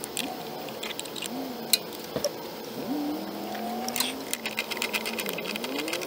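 A ratchet wrench clicking in short, quick runs as the engine cover bolts are backed out, with a few sharper clicks and knocks among them. A faint tone wanders up and down in pitch underneath.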